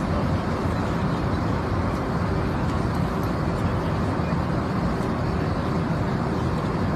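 Steady airliner cabin noise: an even, low rumble and hiss with no distinct events.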